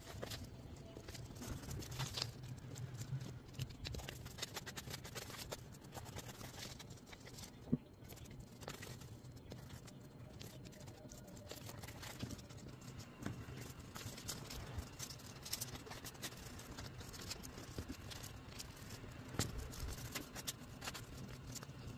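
Paper banknote being folded and creased by fingers: soft crinkling, rustling and scratching of the paper, with a steady low hum beneath and one sharp tick about eight seconds in.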